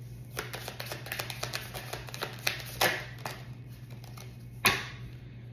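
A deck of oracle cards being shuffled by hand: a quick run of light card flicks and slaps for the first three seconds or so, then one louder snap of the cards near the end.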